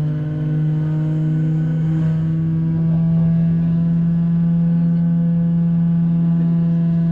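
Steady droning hum inside a Boeing 737-800's passenger cabin during pushback and engine start: one strong low tone with several held higher tones above it. A few of the upper tones shift about two seconds in.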